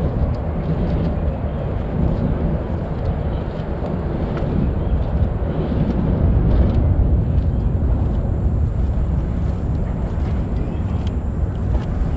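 Steady low rumble of wind buffeting the microphone, with a few faint ticks as a crab net is pulled in by hand.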